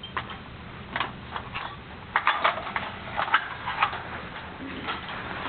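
Irregular metallic clicks and knocks of M2 .50 calibre machine gun parts being handled and set down during disassembly, with a few in quick succession a couple of seconds in.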